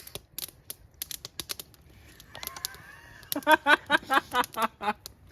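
Scattered light clicks and taps, then, about three seconds in, a person breaks into laughter: a quick run of short pitched 'ha' pulses.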